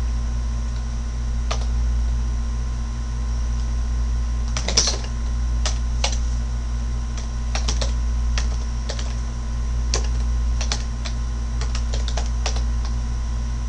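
Computer keyboard being typed on in scattered keystrokes, with a quick run of clicks a little under five seconds in, over a steady low electrical hum.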